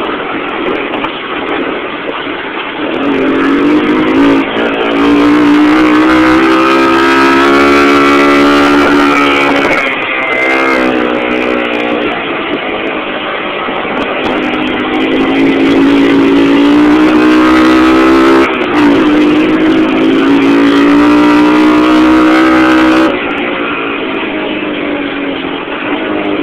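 ATV engine running, twice revving up and holding higher revs for several seconds, with a brief dip about eighteen seconds in, then falling back to lower revs near the end.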